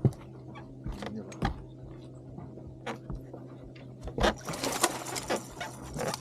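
Fishing reel being cranked while a hooked bass is reeled in, a light whirring with scattered clicks and knocks over a steady low hum. Brief rushes of noise come about four and five seconds in.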